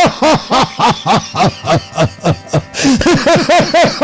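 Instrumental background music of a fast, even run of notes, about four a second, each bending up and then down in pitch.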